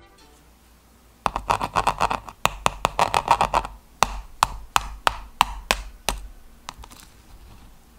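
A spoon tapping and cracking the hard caramelized sugar crust of a crème brûlée. A fast run of taps goes on for about two seconds, then come about seven sharper taps, roughly three a second, and a few faint ticks near the end.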